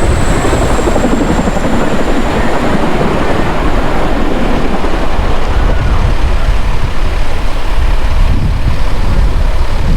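Strong wind buffeting the microphone: a loud, uneven rumble, with a thin high whine fading out in the first few seconds.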